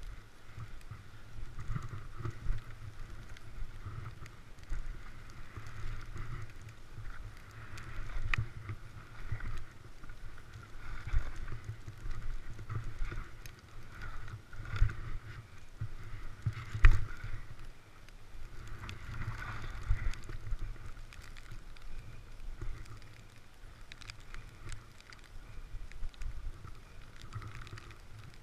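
Skis sliding and scraping over snow through a run of turns, the hiss swelling and fading every couple of seconds, with a low rumble of wind on the microphone and now and then a sharp knock, the loudest about two-thirds of the way through.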